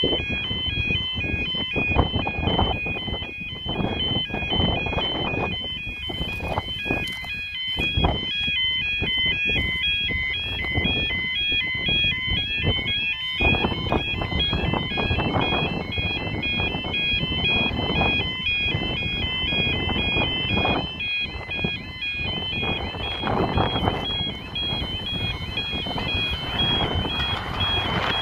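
Level crossing audible warning alarm sounding with rapidly alternating tones, warning that a train is approaching while the crossing lights flash, over a constant low rumbling noise.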